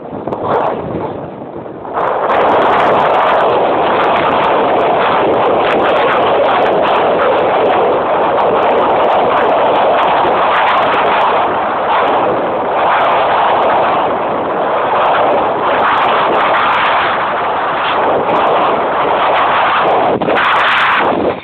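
Wind buffeting a camera microphone as it is carried downhill on skis: a loud, gusty rush that starts abruptly about two seconds in.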